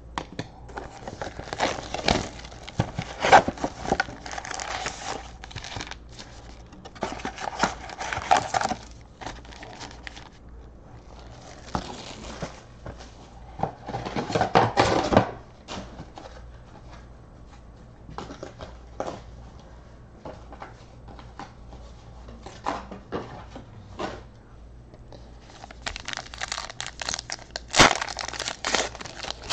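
A sealed trading-card hobby box being opened and its packs handled: cardboard tearing and scraping, and plastic pack wrappers crinkling, in irregular bursts with quieter gaps. Near the end a pack wrapper is ripped open, with a sharp snap among the crinkling.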